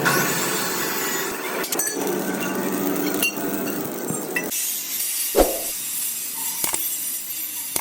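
A few sharp metal clinks and knocks over a steady hiss that stops about halfway through.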